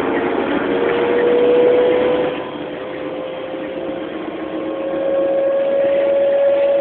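Coach engine and road noise heard from inside the moving coach: a steady drone whose pitch creeps slowly upward as it gathers speed, easing off in loudness for a few seconds in the middle.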